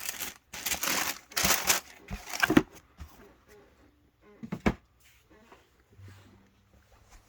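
Paper packaging being crumpled and rustled in several loud bursts over the first three seconds, then a single short knock about four and a half seconds in.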